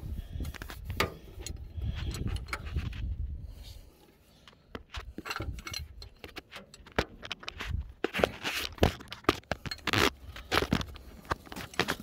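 A steel combination wrench clinking and scraping on a starter mounting bolt as it is tightened: irregular sharp metallic clicks, thicker in the second half, with a dull rumble over the first few seconds.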